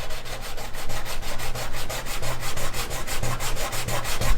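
1500-grit sandpaper on a sanding block being rubbed on automotive clear coat in quick, even back-and-forth strokes, knocking down a dirt nib in the paint.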